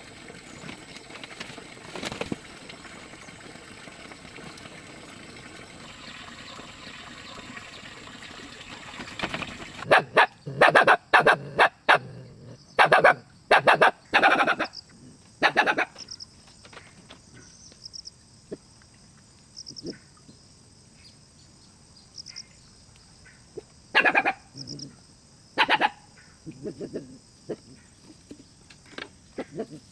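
An animal calling loudly in quick runs of short calls, after a stretch of steady hiss.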